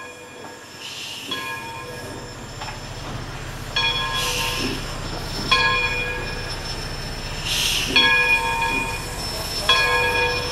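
Passenger train hauled by Essex Terminal 9, a 0-6-0 steam switch engine, rolling slowly past. A ringing tone sounds on and off every couple of seconds over a low rumble, with a hiss about every three seconds.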